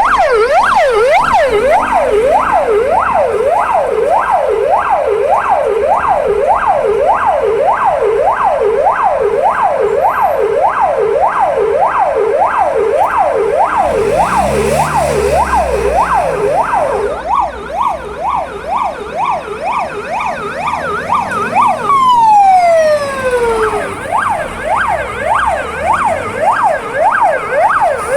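Fire truck siren on the rapid yelp, sweeping up and down about twice a second. About three-quarters of the way through it slides down in one long falling tone, then the yelp starts again.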